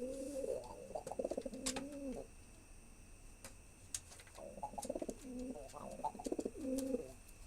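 Male domestic pigeon cooing in courtship of a female: two bouts of low, rolling, pulsed coos, the first at the start and the second after a pause of about two seconds.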